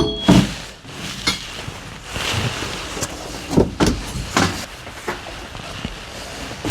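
Rummaging through shop gear: a ringing metallic clink, then a scatter of knocks and clatters as things are moved about.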